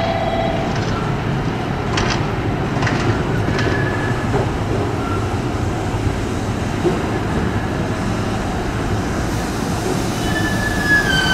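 JR Kyushu 787 series electric train pulling into a station platform and slowing, a steady rumble with a few sharp clicks in the first four seconds. High squealing tones come in near the end as it slows toward its stop.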